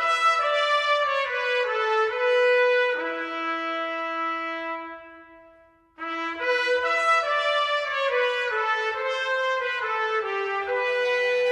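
Soundtrack music: a brass fanfare led by trumpet, playing held notes. The first phrase dies away about five seconds in, and a second phrase starts about a second later.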